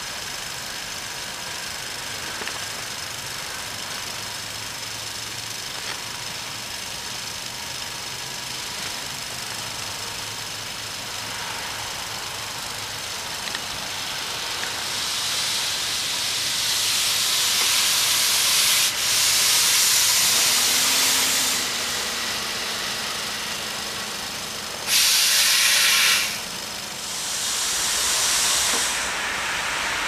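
A passenger train running through at speed on snow-covered tracks: a steady hiss swells into a broad rush of wheel and air noise that peaks midway and then eases. A brief, louder rush cuts in and out sharply near the end.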